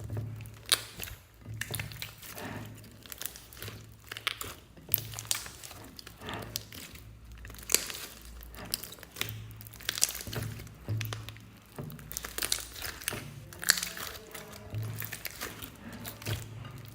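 Slime being squeezed and pressed by hand, making irregular crackling pops and clicks. Background music with steady low bass notes plays throughout.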